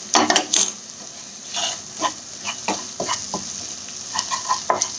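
Masala of ground spices, dry red chillies and ginger sizzling in hot oil in a wok while a wooden spatula stirs and scrapes it around the pan, with short scrapes and taps over a steady sizzle. The spices are being roasted in the oil.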